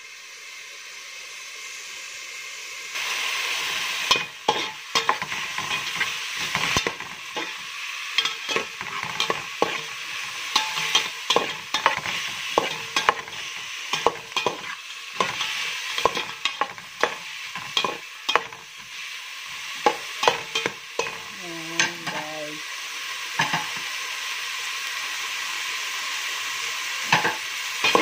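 Onions and tomatoes sizzling in hot oil in an aluminium pot, stirred with a slotted metal spoon that clicks and scrapes against the pot again and again. The sizzle gets louder about three seconds in.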